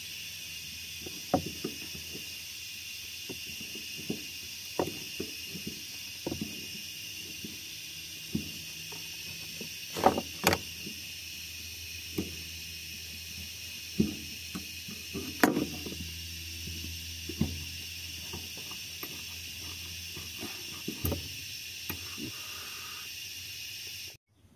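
Long-nose pliers clicking and scraping against the metal hose clamps and fuel hose fittings on a car's fuel pump module, in irregular sharp clicks and taps, with a few louder knocks about ten and fifteen seconds in, over a steady hiss.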